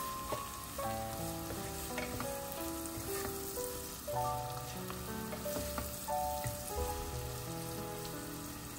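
Grated carrot sizzling in olive oil and butter in a pot, with a wooden spoon stirring and scraping through it. A melodic background music track plays throughout.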